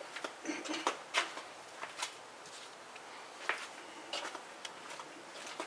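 Scattered light clicks and knocks of hand tools being handled while someone rummages for a small flathead screwdriver.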